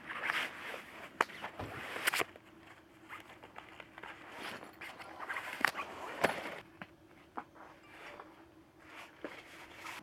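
Rustling and scraping of a foam camping sleeping mat being handled and unrolled, in uneven bursts with a few sharp taps. It is loudest just after the start, around two seconds in, and from about four and a half to six and a half seconds.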